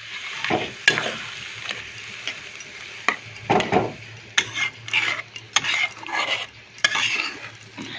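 A steel ladle stirring and scraping thick masala gravy with pieces of pointed gourd in a pan, with repeated metal clinks against the pan over a steady sizzle. This is the gravy being worked in right after water has been added to the fried masala.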